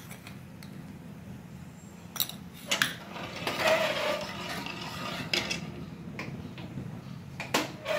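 A steel spoon stirring thick kadhi in a steel pan, clinking sharply against the pan several times, with a soft swirling, scraping stretch in the middle.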